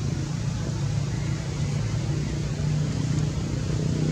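Steady low engine hum, like a motor vehicle running nearby, over a faint even hiss.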